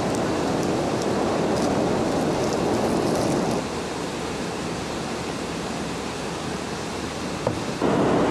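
Steady outdoor background noise, an even rushing hiss with no distinct events. It drops a little in level about three and a half seconds in and rises again near the end.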